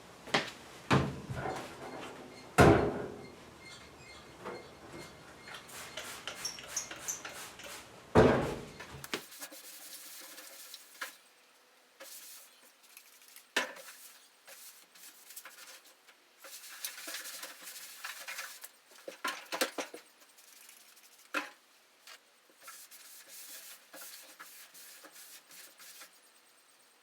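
Scattered knocks and light metallic clinks of tools and parts being handled, with no steady sander running. The two loudest knocks come early, a few seconds apart, and lighter clicks follow at irregular intervals.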